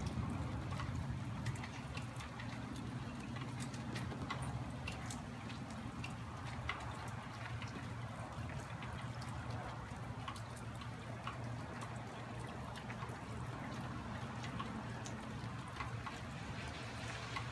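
Rain falling during a thunderstorm, with scattered drops ticking sharply over a steady low rumble.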